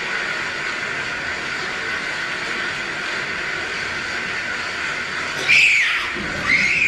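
A steady hiss, then two short squealing glides that slide up and down in pitch, one about five and a half seconds in and another about a second later.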